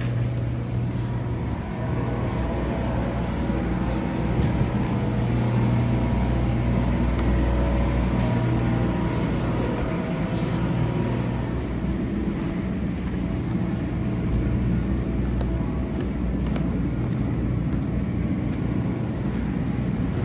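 An engine running steadily with a low, constant hum, swelling slightly in the middle and easing off later.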